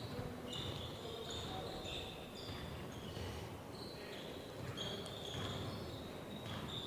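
Basketball shoes squeaking on a hardwood court during play: many short, high squeaks scattered over the low murmur of the gym.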